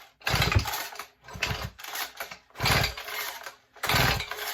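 STIHL BG50 handheld blower's two-stroke engine being cranked over with the recoil starter: four pulls about a second apart, each a short whirring rattle with low thuds, the engine not catching. The owner says it makes a weird internal sound and has found its piston scored.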